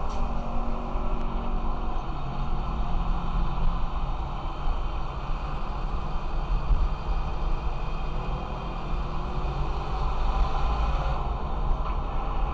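Car driving along a city avenue: steady low engine and road rumble from the moving car, with passing traffic.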